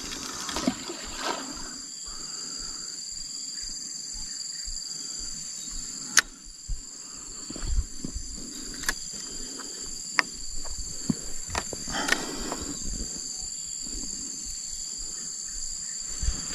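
Steady high-pitched drone of an insect chorus, with a few scattered sharp clicks; the sharpest comes about six seconds in.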